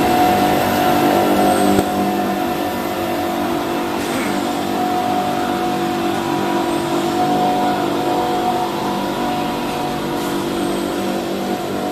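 Pipe extrusion line for steel-wire-reinforced PE pipe running: a steady machine hum from its drive motors and water pumps, with several held tones. It gets a little quieter about two seconds in.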